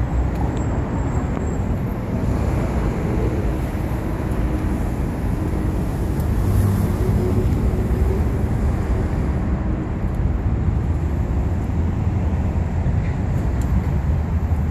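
Steady low rumble of a vehicle engine running, even in level and pitch throughout.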